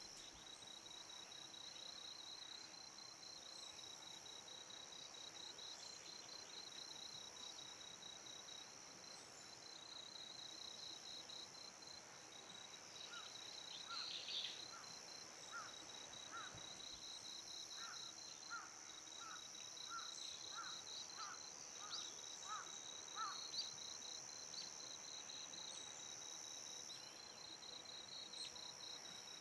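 Faint, steady high chirring of insects, one of them a fast pulsed trill. Partway through comes a run of about fifteen short, clipped bird notes, roughly two a second.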